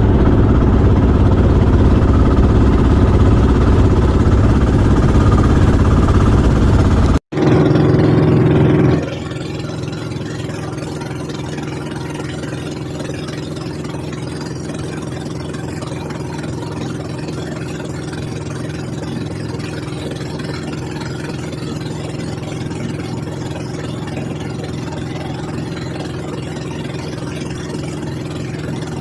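Fishing boat's engine running steadily. It cuts out for an instant about seven seconds in, and about two seconds later it drops to a quieter, steady drone.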